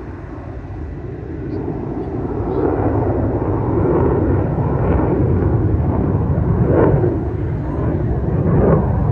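Fighter jet flying past, its engine noise a deep, rushing rumble that builds over the first three seconds and then stays loud, with brief louder swells about seven seconds in and near the end.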